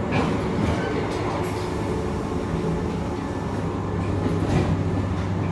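Running noise inside a coach of a JR 185 series electric train: a steady rumble of wheels on rail with a constant low hum and a few faint knocks from the track.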